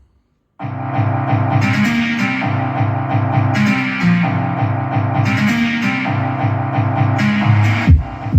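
Music playing back through a soundbar: after a half-second silent gap, a guitar-led passage with bass plays steadily, and regular heavy drum beats come back near the end.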